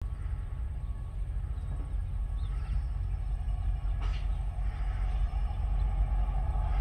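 Diesel locomotives 2011 and TR01 of a ballast train approaching under power, heard as a low rumble that grows steadily louder.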